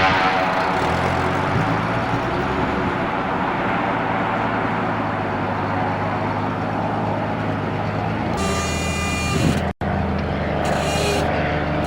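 An engine running steadily, with a higher whine joining in for about a second before the sound cuts out abruptly for an instant near ten seconds in and then carries on.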